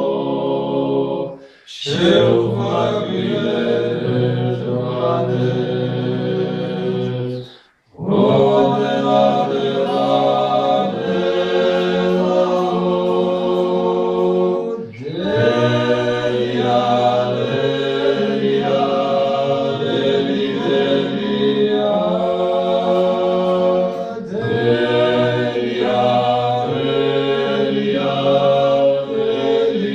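A men's vocal ensemble sings a Georgian folk song in close polyphony: long chords held over a low sustained bass line, in phrases split by short breath pauses, the deepest one about eight seconds in.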